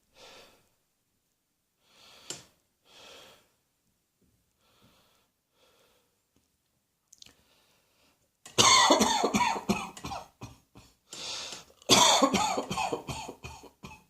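A person coughing hard in several rapid fits, starting a little past halfway, after a few faint breaths.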